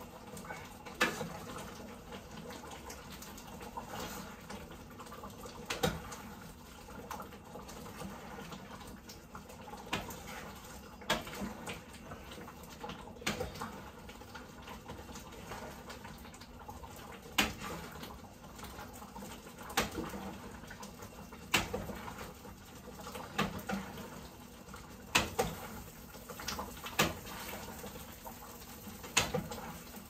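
A utensil stirring thick curry in a pot, with a wet, sloppy sound and irregular knocks of the utensil against the pot every second or two.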